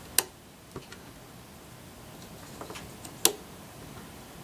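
A few sharp plastic clicks as rubber bands are stretched onto the pegs of a plastic Rainbow Loom, with the loudest near the start and another about three seconds in.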